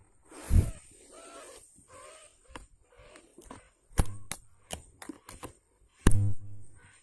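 A series of sharp clicks and knocks: the loudest come about four and six seconds in, with a cluster of quicker clicks between them. A few short rising-and-falling calls sound in the first two seconds.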